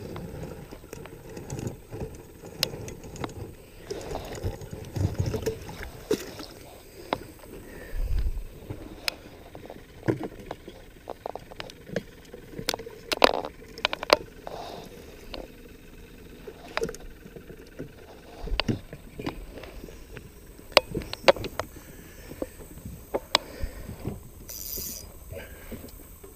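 Scattered clicks, knocks and rustling from fishing gear and clothing being handled aboard a plastic fishing kayak, with a brief hiss near the end.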